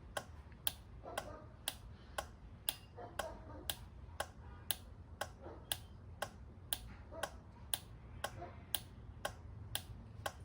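Car alarm control unit's relay clicking steadily, about two clicks a second, as the triggered alarm pulses its output.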